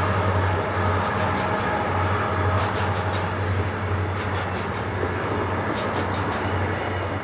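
Several six-axle diesel locomotives hauling a coal train, with a steady low engine rumble under the noise of the train rolling. Scattered wheel-on-rail ticks run through it, and the sound eases slightly as the locomotives pull away.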